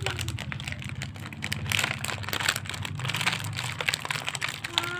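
Plastic candy wrapper crinkling and crackling in irregular bursts as hands work at it to get it open.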